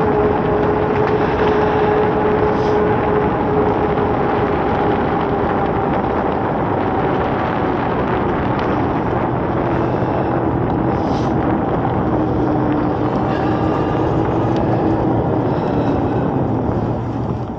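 Eahora Juliet e-bike's hub motor whining steadily under full throttle, its pitch sinking a little about two-thirds of the way through as the bike eases from 20 to 19 mph. Underneath is a constant rush of wind and tyre noise.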